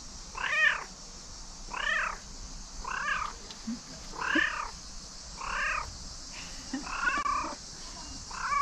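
A cat meowing over and over, about seven meows, one every second or so, each call rising then falling in pitch.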